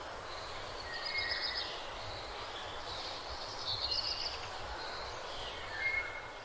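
Faint bird chirps a few times over a steady background hiss.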